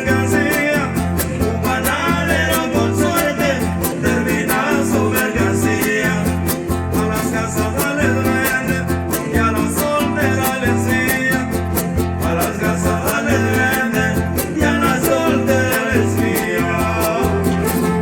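Huapango huasteco music: rhythmic strumming of the jarana and huapanguera guitars under a gliding violin melody, played at a steady, lively beat.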